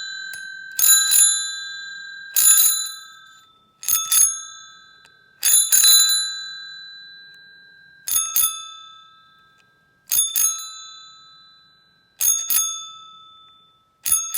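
Antique two-chime, gear-driven bicycle bell with a US War Department tag, rung by hand about eight times, roughly every one and a half to two seconds. Each ring is a quick double strike, and its two tones ring on and fade before the next.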